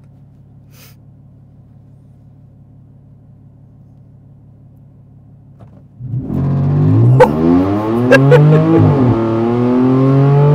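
Supercharged 3.0 TFSI V6 of a tuned Audi A5 with a straight-piped exhaust, idling quietly at first, then about six seconds in a full-throttle launch: the revs climb loudly, drop at an upshift about three seconds later, and climb again.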